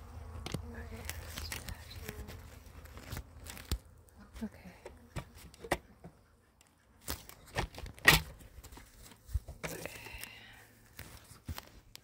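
Handling noise: scattered clicks, knocks and rustles, with one sharp knock about eight seconds in.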